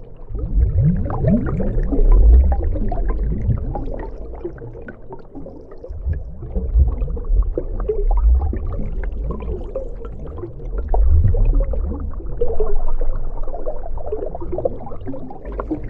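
Underwater ambience of deep-sea water flow: a deep low rumble of moving water with bubbling and gurgling, rising and easing in slow surges every few seconds.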